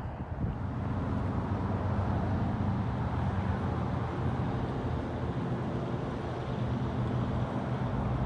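A steady low mechanical hum and rumble from an unseen engine, even throughout with no changes.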